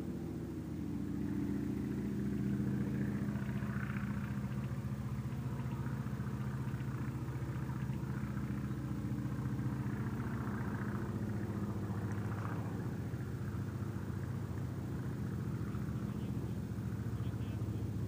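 A motor running steadily with a low, even hum, growing louder over the first couple of seconds and then holding.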